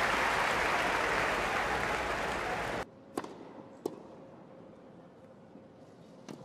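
A crowd applauding and cheering, which cuts off abruptly about three seconds in. It gives way to a much quieter tennis rally: a few sharp racket strikes on the ball, well spaced, over a low hush.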